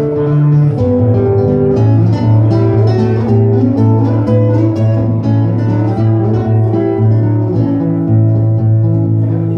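Solo classical guitar played fingerstyle: a picked melody over a low bass note that is struck again and again, with no singing.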